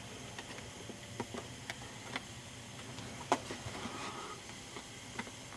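Scattered light clicks and taps at irregular intervals, the sharpest about three seconds in, over a faint steady low hum.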